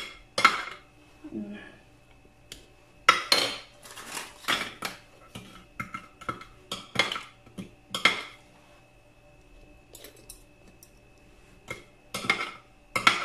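Metal fork clinking and scraping against a ceramic plate while biscuits are broken up on it: irregular sharp strokes in clusters with short quiet gaps.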